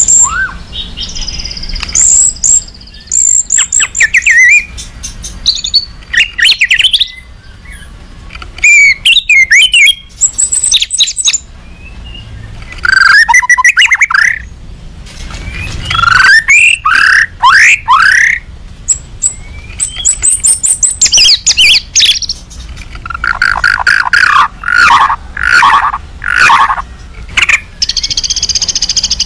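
White-rumped shama singing an agitated song of bursts of rapid whistled and rattling notes, each a second or two long, with short pauses between. This is the kind of 'emotional' song played as a lure to make other shamas answer.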